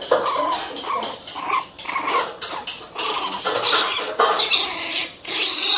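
Pinscher puppies yapping and squealing as they play-fight, the short cries following one another almost without pause.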